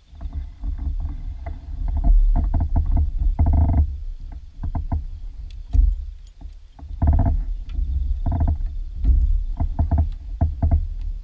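Irregular knocks, bumps and clatter on a plastic fishing kayak's hull with a low rumble under them, as gear and the boat are handled.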